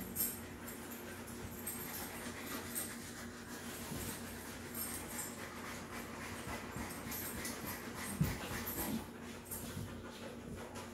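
Dogs making small breathing and whining sounds while resting, over a steady low hum, with a brief soft knock about eight seconds in.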